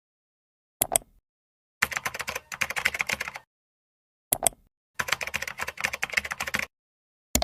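Computer keyboard typing in two quick bursts of about a second and a half each, each preceded by a couple of separate key clicks, with dead silence between them.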